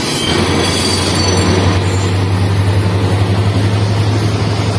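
Locomotive-hauled passenger train running, heard from the first coach behind its EMD diesel locomotive: a steady low drone over the rumble of wheels on track, with a faint high wheel squeal in the first second or so.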